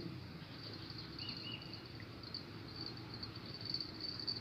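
Insects trilling steadily at a high pitch, with two short chirps about a second in, over a low, even rumble.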